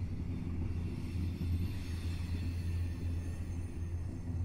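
Freight train's intermodal well cars rolling past on the track: a steady low rumble with a hiss of steel wheels on rail above it.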